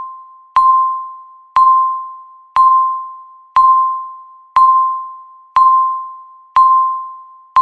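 A countdown timer's electronic beep sounding once a second, marking each second counted down. Each beep is one clear tone with a sharp start that fades away before the next.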